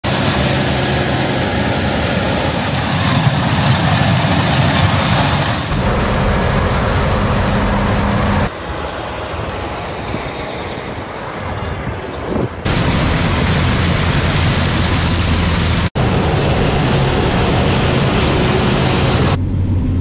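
Large harvest machines running in a field, the combines and tractor engines giving a steady low drone over a rush of noise. The sound changes abruptly every few seconds as it jumps from one machine to the next. It is quieter for a few seconds in the middle and drops out for an instant later on.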